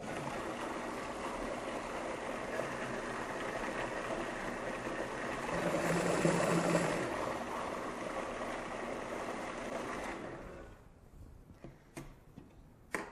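Food processor motor running, pureeing cooked butternut squash and onion with stock; it swells for a moment about six seconds in and stops after about ten seconds. A few light clicks follow near the end.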